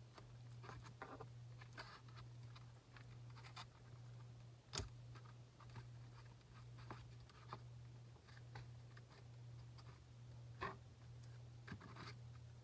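Faint handling noises of a 2S LiPo battery being fitted into a small Axial SCX30 RC crawler: small plastic clicks and rustles, with a sharp click about five seconds in and another near eleven seconds, over a steady low hum.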